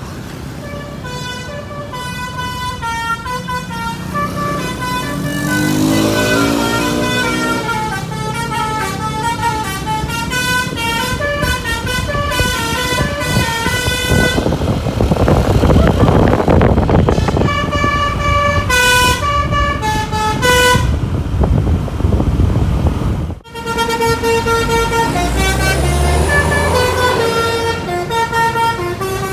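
Basuri "pianika" telolet multi-tone air horn on a bus, playing quick melodic runs of changing notes again and again. A stretch of rushing noise comes around the middle, and the sound breaks off for an instant about three-quarters of the way in before the horn tune carries on.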